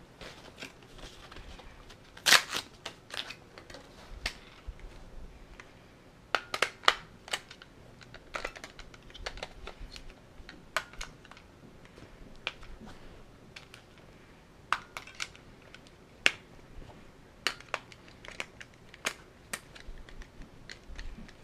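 C batteries being pushed by hand into a long plastic battery holder: irregular sharp clicks and knocks of the cells and plastic, the loudest about two seconds in.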